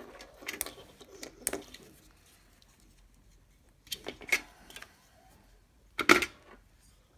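Handling noises of small parts on a tabletop: short clicks and rattles of wires and a plastic battery holder, a few around a second in and a cluster about four seconds in. The loudest is a metallic clatter about six seconds in, as the Altoids tin's lid is handled.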